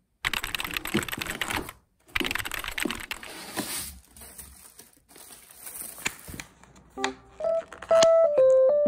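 Cardboard delivery box being opened by hand: two bursts of crackling, scraping cardboard, then softer rustling and handling. Piano music comes in about seven seconds in.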